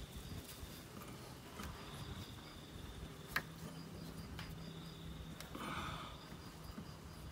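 Faint rubbing and clicking of a metal garden faucet being turned by hand as it is screwed onto a standpipe, with one sharp click about three and a half seconds in. A thin insect chirp comes and goes in the background.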